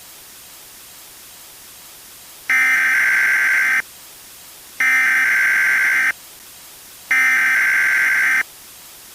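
Emergency Alert System SAME header: three identical digital data bursts, each just over a second long with about a second of hiss between them. These bursts encode the alert's details and open an emergency alert broadcast.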